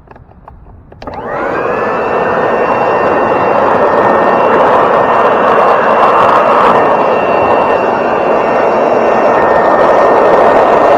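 Electric leaf blower switched on about a second in, its motor whine rising quickly to full speed and then running steadily and loud.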